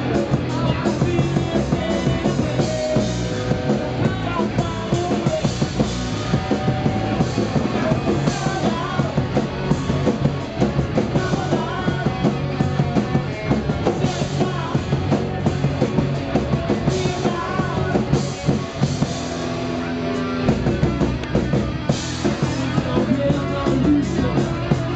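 Punk rock band playing live and loud: electric guitar, bass guitar and drum kit, with a singer's voice over them.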